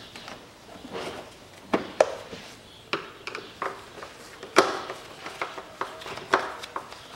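Irregular sharp clicks and knocks of hard plastic as a screwdriver works at the air duct fastening on a car's air filter housing, being undone to change the air filter. The loudest knocks come about two seconds in and a little past the middle.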